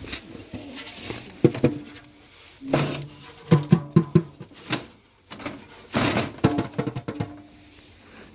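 A small tom drum with a worn coated head is tapped by hand in two groups of quick hits, each a hollow thud with a short low ring. Between the groups the drum rustles and scrapes as it is shifted on a wooden shelf.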